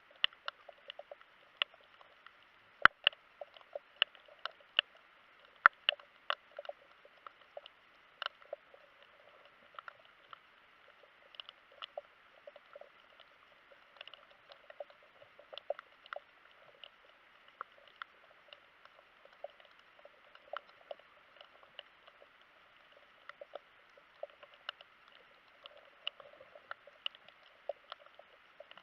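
Irregular sharp clicks and ticks crackling several times a second, heard underwater, with the loudest click about three seconds in.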